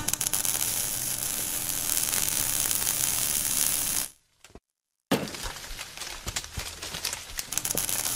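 A steady machine hum under a loud hiss, with scattered clinks and rattles; the sound cuts out for about a second midway and comes back with more clicking.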